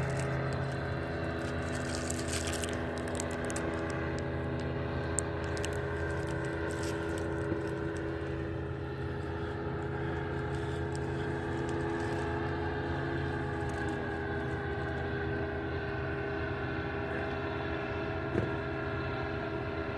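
Powered paraglider (paramotor) engine running steadily in flight, a continuous drone.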